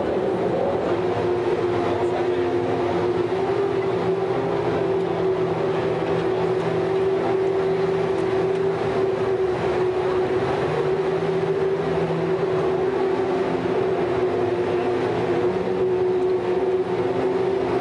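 Formula One car engine running at steady revs, one constant note that barely changes in pitch.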